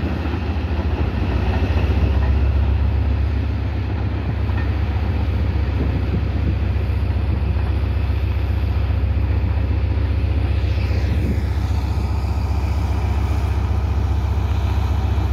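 Wind buffeting the microphone in a steady, deep rumble, mixed with the fading noise of a passing express train as it draws away down the track.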